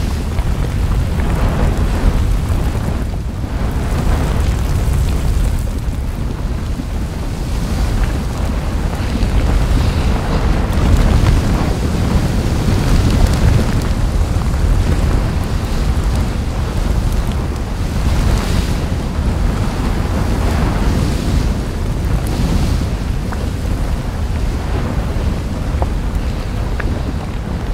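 Erupting lava fountain at a volcanic fissure: a loud, continuous deep rumbling rush of churning, spattering lava that swells and eases at irregular intervals.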